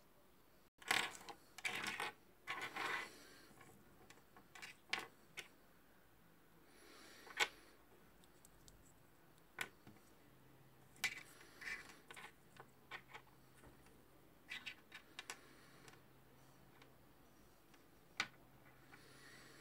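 Handling noise: scattered light clicks, taps and rubbing from a phone being held and moved and a stripped USB cable being shifted on a table, with a flurry of louder rustles about a second in.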